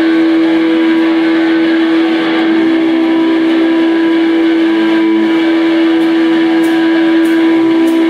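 Electric guitar feedback through an amplifier: one loud tone held steady, over a noisy wash of distorted sound.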